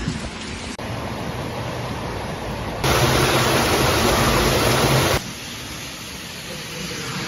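Floodwater rushing: muddy water pouring over a curb into a storm drain grate gives a loud, even rushing noise for a couple of seconds in the middle. Before and after it, the rushing is quieter, and it changes abruptly as the clips cut.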